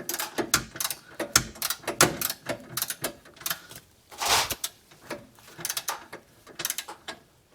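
Torque wrench ratcheting in repeated strokes, tightening a 17 mm rear shock bolt toward 47 ft-lbs: quick clusters of ratchet clicks, with a longer stretch of noise about four seconds in. The wrench has not yet reached its set torque.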